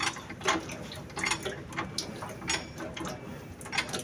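Irregular metallic clicks and clinks of a socket ratchet wrench and other hand tools being handled, a few with a brief ring.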